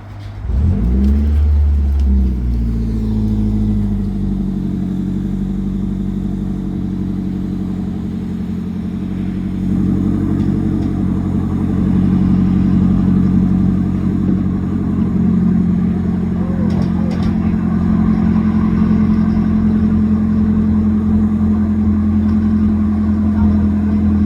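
An engine starts about half a second in, revs up with a rising pitch over the first couple of seconds, then keeps running at a steady speed.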